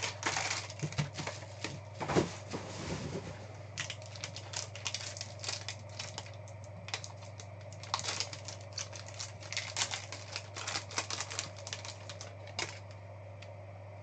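Plastic shrink-wrap and a foil trading-card pack being torn open and handled: a rapid, irregular run of sharp crinkles and crackles that stops about a second before the end, over a steady low hum.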